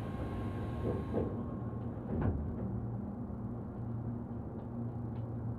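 Inside an electric commuter train car: a steady low hum, with a hiss that cuts off about a second in and a thud a second later, fitting the car's sliding doors closing.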